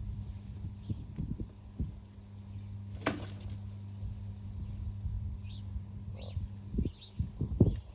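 A peacock pecking and striking at its reflection in a mirror: irregular dull knocks and thumps, with one sharp tap about three seconds in and the loudest thumps near the end, over a steady low hum. A few faint high chirps from small birds.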